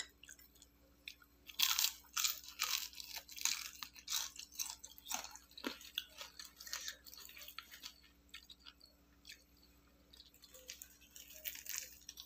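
Biting into and chewing crispy deep-fried chicken: a run of sharp crunches through the first half, easing to quieter chewing, with a few more crunches near the end.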